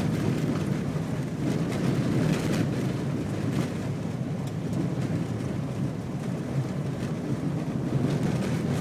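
Steady rumble of a vehicle driving slowly over a rough dirt road, heard from inside the cabin: engine and tyres on dirt.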